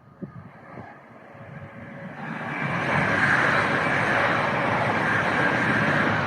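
A train passing at speed: the rushing noise of wheels on rails builds over about two seconds, then stays loud and steady.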